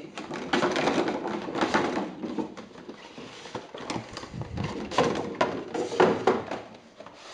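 Thin clear plastic packaging crinkling and rustling as it is handled and pulled free of a cardboard box, with irregular light taps and knocks of the box being turned over.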